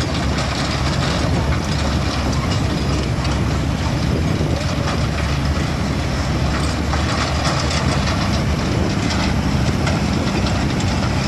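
Diesel engine of heavy construction machinery running steadily.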